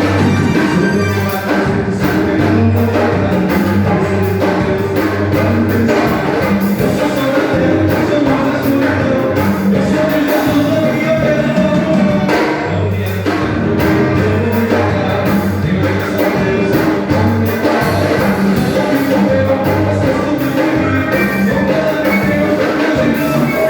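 A live band playing a song in rehearsal, with a drum beat, bass notes and singing.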